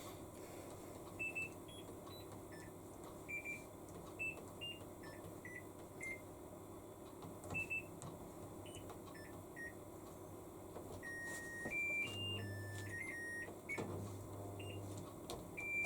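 Control-panel beeps of a Hitachi BeatWash BW-V80C washing machine as its buttons are pressed: many short beeps at changing pitches, more of them near the end, where a low hum also comes and goes.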